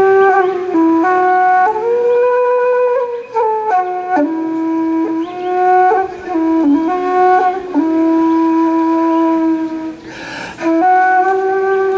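A flute playing a slow solo melody in long held notes, stepping up and down in pitch, with a brief breathy break about ten seconds in.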